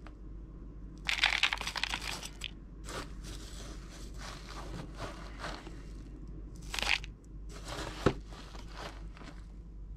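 Spoon scooping a fine pine bark and perlite potting mix into a clear plastic pot, making a run of dry, crunchy scrapes and rattles, with one sharp click about eight seconds in.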